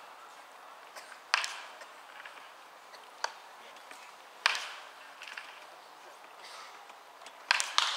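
Scattered sharp knocks of baseball practice, balls cracking off bats and popping into gloves: single knocks a few seconds apart, the loudest one near the middle, and a quick run of two or three near the end.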